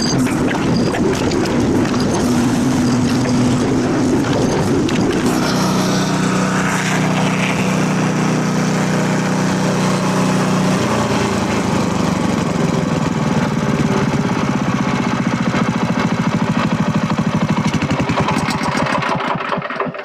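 A gasoline engine running steadily, its pitch shifting about halfway through, then shut off right at the end.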